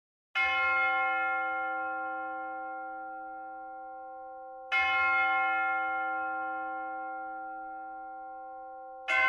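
A single church bell tolling, struck three times about four and a half seconds apart. The first strike comes about half a second in and the last just at the end, and each one rings on with a long, slowly fading hum.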